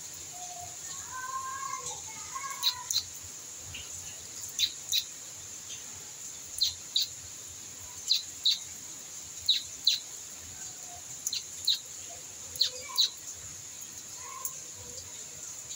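A bird chirping: short, sharp chirps, mostly in pairs, repeating about every one to two seconds over a steady high hiss.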